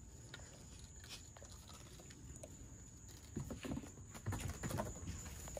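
A puppy dragging a long thin stick over concrete paving slabs: soft scrapes and taps of the stick on the stone, with the patter of small paws. It grows busier and louder for a moment about three and a half seconds in.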